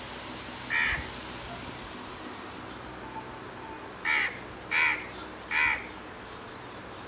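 Crows cawing: one caw, then after a pause three caws in quick succession, over a steady background hiss.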